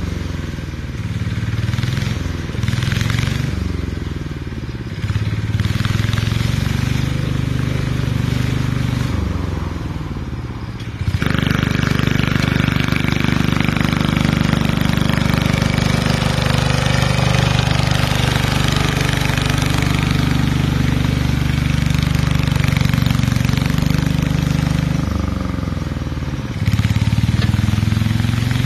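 Lister diesel engine on a ride-on mower running under load, its speed dropping and picking up several times. About eleven seconds in it changes abruptly to a steadier, louder run, then dips and recovers again near the end.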